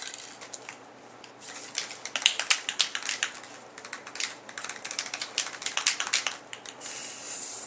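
Aerosol spray-paint can being shaken, its mixing ball rattling in quick clicks for several seconds, then a short hiss of spray near the end.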